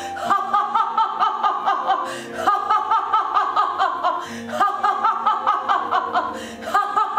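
Background music with a fast, even pulsing beat and chords that change about every two seconds, over a woman's rhythmic laugh-like 'O' vocalizing as she taps her diaphragm in laughter yoga.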